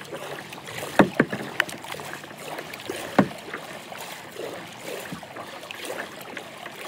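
Kayak being paddled with a metal-shafted double-bladed paddle, the blades dipping and splashing in the water. A few sharp knocks stand out, about a second in and again near three seconds.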